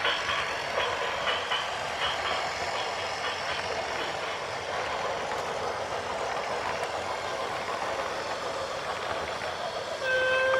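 A heavy construction vehicle running, with a steady mechanical noise and rattling clicks over the first few seconds. A steady pitched tone with overtones, like a horn, begins near the end.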